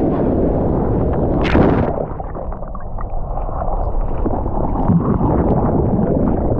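Ocean surf rushing and sloshing right against a GoPro camera in the water, with one sharp splash about a second and a half in.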